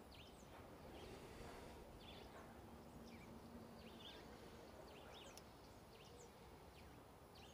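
Near silence with faint, scattered bird chirps: short falling calls every second or so over a low background hiss.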